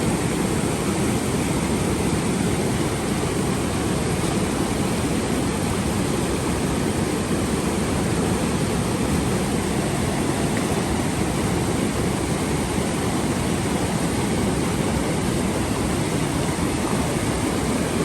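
A swollen river in flood rushing past: a steady, even noise of fast, heavy water with no breaks.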